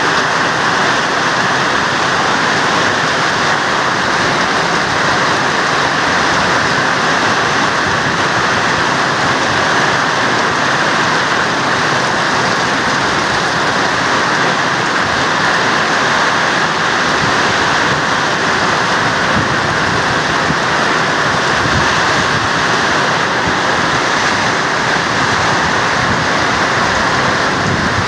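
Heavy typhoon rain falling steadily, an even, unbroken hiss of rain.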